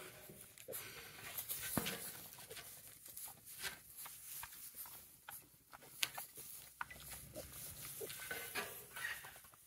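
Four-week-old piglets giving many short grunts as they mill about close by, with rustling and light clicks from their trotters in the straw.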